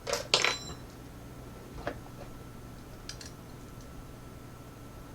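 A quick cluster of small clicks and taps, then a single knock about two seconds in and a couple of faint clicks a second later: a lock cylinder and a small bottle being handled on a hard surface while the bottle is fitted to the back of the cylinder as a follower.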